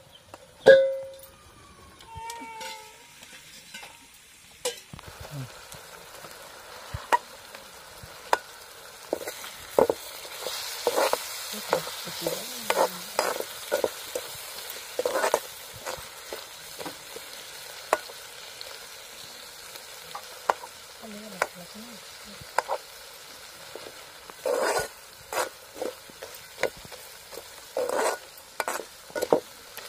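Steel ladle scraping and knocking against a metal kadai as a snail and potato curry is stirred, the curry sizzling steadily underneath. In the first few seconds, a short run of pitched, gliding tones, loudest about a second in.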